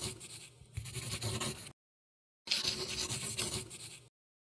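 Marker scribbling across a drawing surface, a scratchy rubbing sound in two stretches with a short silence between, stopping shortly before the end.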